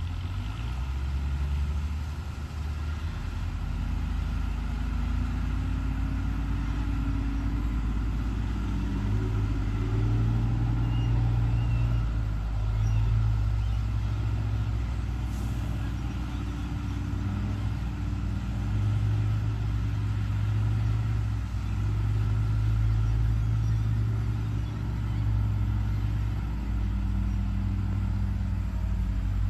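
Heavy diesel engine of a Hyundai HX210HD hydraulic excavator running steadily at working speed, its low note rising and falling slightly as the load changes.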